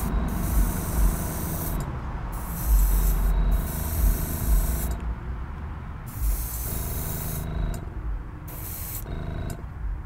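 Airbrush spraying paint in short bursts of about a second each, five or six of them with brief pauses between, a hiss of air and paint. Beneath it runs the low steady hum of the air compressor feeding the airbrush.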